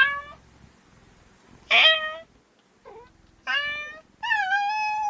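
A female domestic cat meowing repeatedly: about five separate meows, one short and faint, the last one longer and held level until it cuts off.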